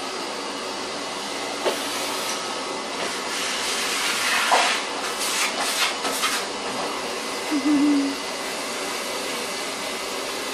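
Vacuum cleaner running steadily while sucking up dust, with louder rushes of air between about four and six and a half seconds in.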